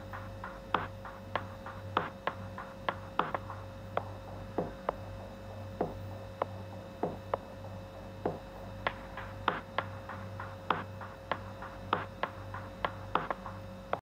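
Short cartoon pop sound effects, one for each animated fruit dropping onto a pile, coming about two or three a second at uneven spacing over a low steady hum.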